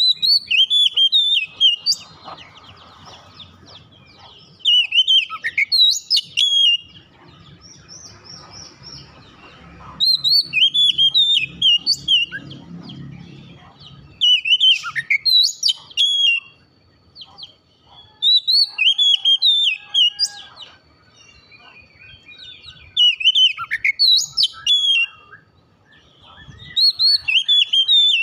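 Oriental magpie-robin singing: loud bursts of quick, varied whistled notes, each about two seconds long, repeated every four to five seconds with quiet gaps between.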